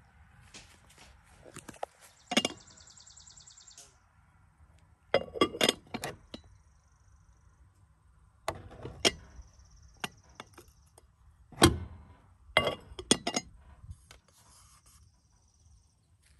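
Lidded china canisters and dishes being handled, clinking and knocking against each other and the table in several short clusters of sharp clinks.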